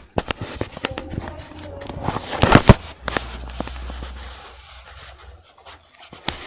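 Handling noise from toys being moved and set down: a string of clicks and knocks with rustling, the loudest knocks about two and a half seconds in.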